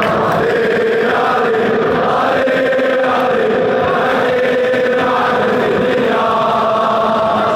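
A large stadium crowd of football supporters singing a chant in unison, loud and continuous, in phrases of long held notes.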